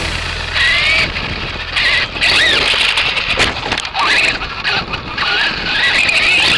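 Axial Yeti XL RC car's electric motor, run on a 6S LiPo, whining under throttle, its pitch rising and falling again and again, over rough tyre and terrain noise picked up by an onboard camera.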